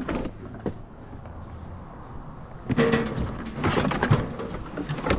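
Clicks, knocks and rattles of a car's front bumper being worked loose by hand. There is a few quiet clicks at first, then a busier run of knocking and rattling from about halfway through.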